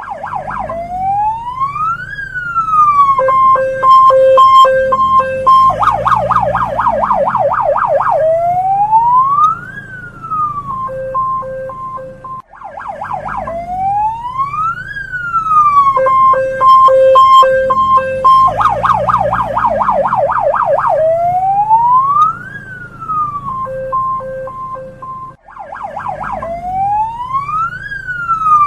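Hong Kong police car siren cycling through its tones. A slow wail rises and falls, then a pulsing beep, then a rapid warble, and the cycle repeats about every 13 seconds.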